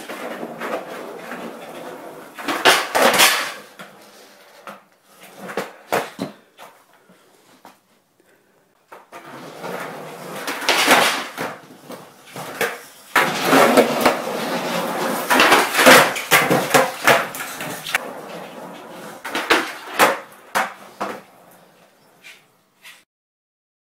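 Skateboard wheels rolling on concrete during two long runs, broken by sharp clacks as the board is popped, slides across a low grind rail and lands. There are several separate attempts, with the last clacks near the end.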